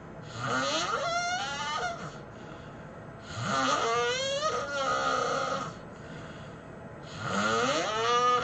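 A person snoring heavily: three long snores about three and a half seconds apart, each carrying a pitched tone that slides upward.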